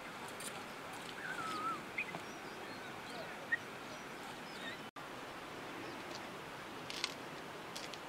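Quiet rural outdoor ambience with a few short bird chirps and some faint clicks; the sound briefly cuts out about five seconds in.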